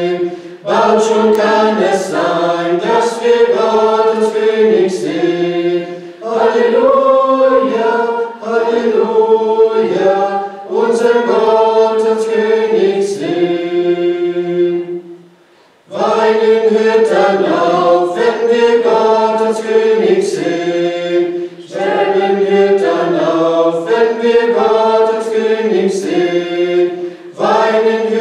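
A small mixed group of men's and women's voices singing a hymn a cappella, line by line, with a short break a little past halfway before the next line begins.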